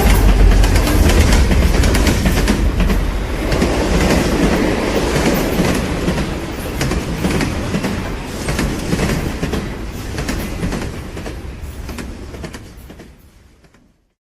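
Train running on the rails, a dense rumble with rapid wheel clatter, fading away over the last few seconds until it is gone.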